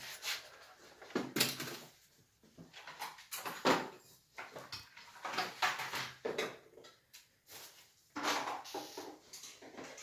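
Irregular knocks, clatter and scraping from demolition work in a small tiled bathroom, with sharp hits and longer scrapes coming unevenly.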